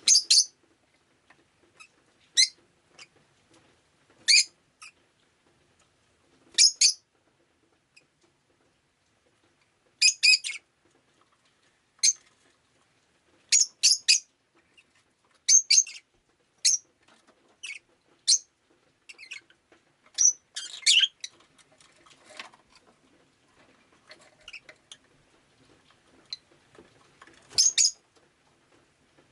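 Rosy-faced lovebird chirping: short high chirps, singly or in quick twos and threes, every second or two.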